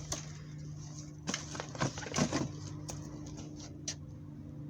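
Scattered clicks and rustles of objects being handled, bunched about a second and a half to two and a half seconds in, over a steady low hum.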